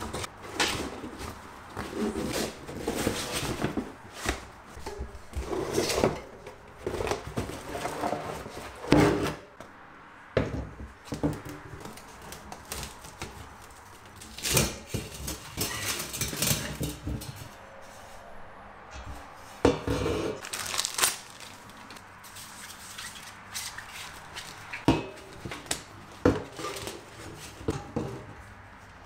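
Fat-bike tyre being levered off its rim with a plastic tyre lever and the rim liner pulled out: rubber scraping against the rim, with irregular knocks and clatters.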